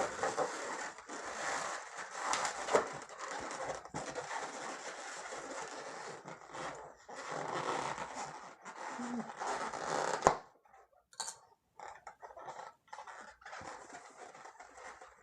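Latex modelling balloons rubbing and squeaking as they are handled and twisted. There is one sharp click about ten seconds in, and after it the handling sounds are quieter and more scattered.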